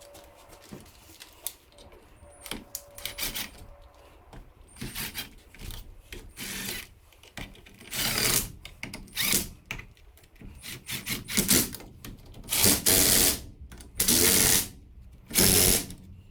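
Clicks and rattles of metal parts handled as the nail gun's cover is fitted, then a power driver running in short bursts, driving the cover screws down.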